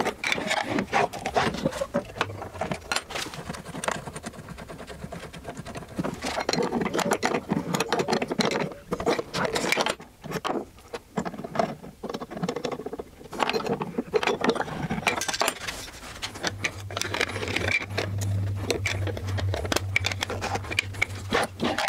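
Light metal clicks, clinks and scrapes of hand tool work at a router table as a tongue-and-groove router bit is loosened from its collet with a wrench and lifted out. A low steady hum joins near the end.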